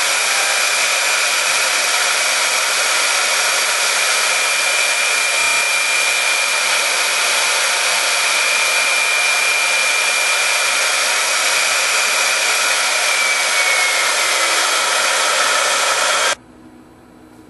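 High-speed router spindle on a robot arm running with a steady whine while its end mill machines a foam block, under a loud even hiss. The whine dips slightly in pitch about thirteen seconds in, and the sound cuts off abruptly near the end, leaving a faint hum.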